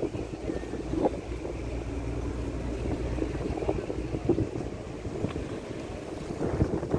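Boat motor running with a steady low hum, water rushing and splashing past the hull, and wind buffeting the microphone; the hum drops away near the end.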